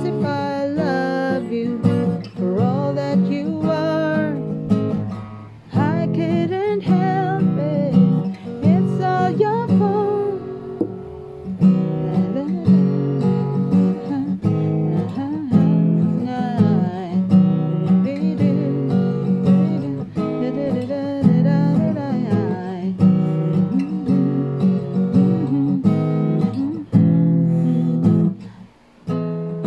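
Acoustic guitar strummed steadily as song accompaniment, with a short break in the playing near the end.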